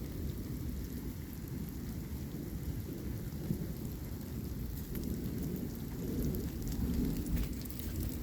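Steady rain falling during a thunderstorm, with a low continuous rumble of thunder that swells a little about five and seven seconds in.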